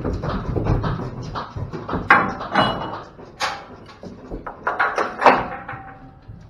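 Cows' hooves clattering and knocking on the metal floor of a livestock trailer, and the trailer's metal gate being handled, with several loud ringing metallic clangs about 2, 3.5 and 5 seconds in.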